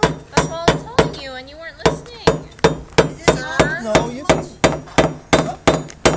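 Hammer driving nails through steel joist hangers into wooden deck framing: a steady run of sharp strikes, about three a second, each with a short metallic ring.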